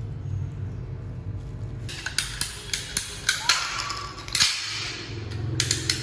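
Ratcheting PVC pipe cutter being squeezed on grey PVC pipe: a run of sharp snapping clicks starting about two seconds in, with one louder crack a little past the middle. A low steady hum sits underneath at the start.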